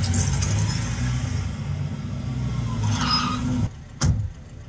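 A motor vehicle's engine running steadily in the drama's soundtrack, with a low even hum that cuts off suddenly near the end. A single sharp knock follows.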